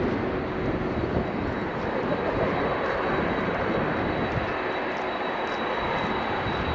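Boeing 777-300ER's two GE90-115B turbofans at takeoff thrust, a steady dense rush of jet noise as the airliner accelerates down the runway toward lift-off. A thin high whine grows in about halfway through.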